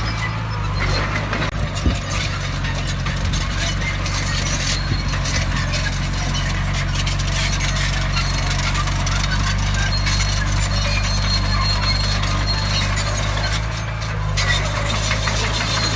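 Heavy earthmoving machine's diesel engine running steadily, with a dense metallic clatter and squeal over it.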